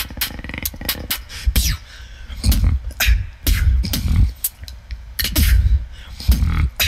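Human beatboxing: sharp clicks and snare-like hits over deep bass notes, in a fast, uneven rhythm.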